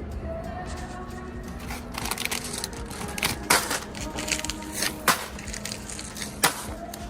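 Crinkling and handling noise with several sharp knocks and clicks, the loudest about halfway through, over faint background music.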